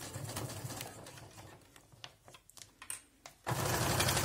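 Faint handling with a few light clicks. About three and a half seconds in, a domestic sewing machine starts running steadily, stitching a clear plastic sheet to cotton fabric.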